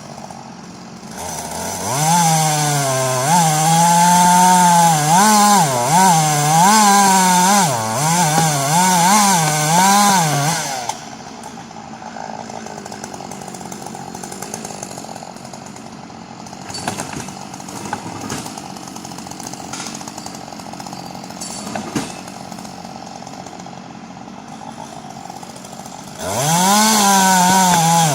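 Chainsaw revving up and cutting into thick wood at high throttle, its pitch wavering up and down as the chain bites and frees. After about ten seconds it eases off to a much quieter run for about fifteen seconds, then revs up hard again near the end.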